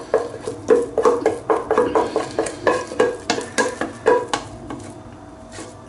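Spoon scraping and knocking against a pan while working cheesy mashed potato, a run of irregular clicks and scrapes that die away about four and a half seconds in.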